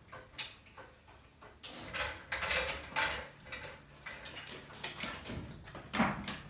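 Scattered metal clanks, clicks and rattles, about half a dozen, from steel wheel dollies being set against a truck tyre and worked with a long handle.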